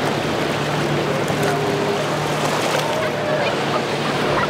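A boat's motor hums steadily over rushing water and wind, with people's voices faintly mixed in.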